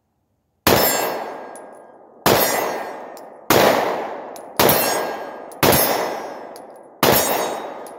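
Six 9mm pistol shots from a Glock 43 fired one-handed at an uneven pace, about a second to a second and a half apart. Each shot is followed by a long fading echo.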